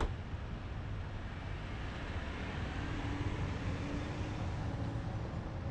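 Steady low rumble of road traffic, with a sharp click right at the start and a faint hum passing through the middle.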